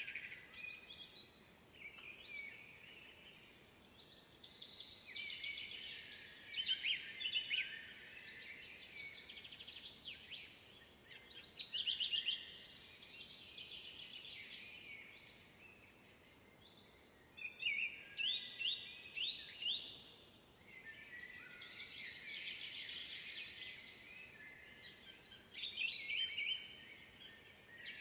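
Woodland songbirds singing, chirps and trills in overlapping phrases, with a louder, sharper phrase every five to seven seconds.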